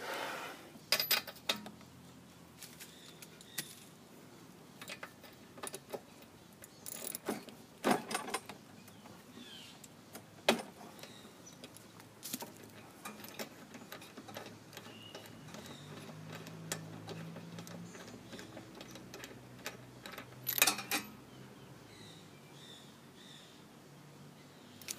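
Metal hand tools clinking and clanking against a Briggs & Stratton lawn mower engine as its spark plug is taken out: scattered sharp metallic clicks and knocks, with louder clanks about a second in, near the middle and near the end.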